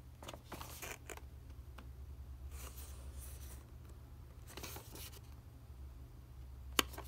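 Hands turning and handling a cardboard action-figure box with a clear plastic window: several short rustles and scrapes of fingers on the packaging, and one sharp tap near the end.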